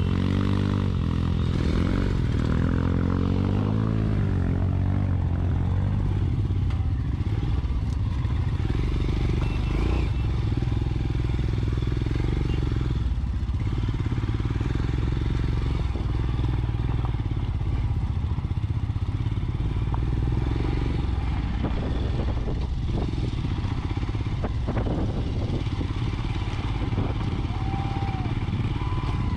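Royal Enfield Scram 411's single-cylinder engine running at low speed over rough ground, its note rising and falling in the first few seconds. A few short knocks come in the last third.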